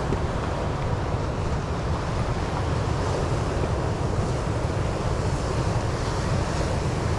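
Ocean surf breaking and washing along a rocky cobble beach, steady throughout, with wind on the microphone adding a low rumble.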